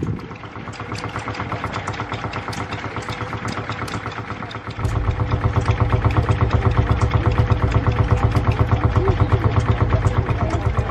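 Vintage farm tractor engine idling with an even, rhythmic chug. It gets louder and deeper about five seconds in.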